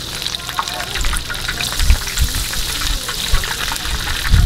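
Battered shrimp deep-frying in a wide pan of hot oil: a steady bubbling crackle with many small pops. A few low thumps come about two seconds in and near the end.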